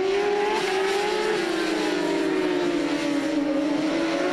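Two superbike racing motorcycles running hard at high revs, the engine note climbing a little, then easing down slowly and picking up again near the end.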